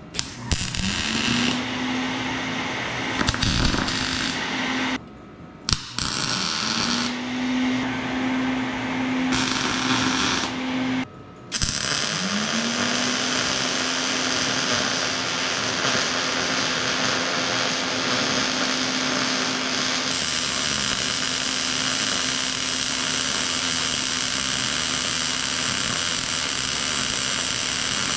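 Wire-feed welder running beads on sheet steel, the arc giving a steady hiss. It stops briefly about 5 and 11 seconds in, then runs as one long continuous bead to the end. Each start brings a low hum that rises in pitch and then holds.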